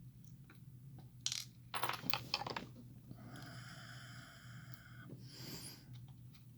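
Small metal lock parts (pins, springs and tools) clicking and scraping as they are handled. About three seconds in comes a high metallic ringing that lasts about two seconds.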